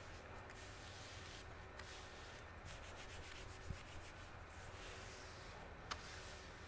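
Hands rubbing and pressing a tape template down onto a piece of sheet steel, a faint dry brushing, with a couple of light taps along the way.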